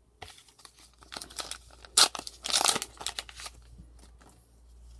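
Foil booster-pack wrapper crinkling and being torn open: a run of crackly rustles, loudest about two seconds in, dying away after about three and a half seconds.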